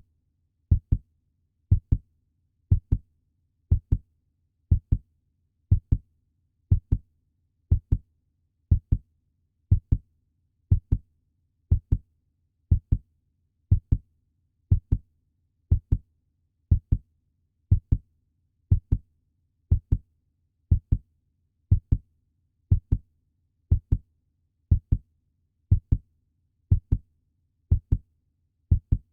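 Puppy heartbeat sound effect: steady pairs of low thumps (lub-dub), about one beat a second, evenly repeated.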